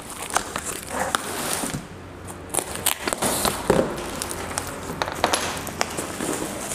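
Hands working at a cardboard box and a bubble-wrapped, taped package: irregular rustling and crinkling of cardboard and plastic wrap with scattered sharp clicks and knocks.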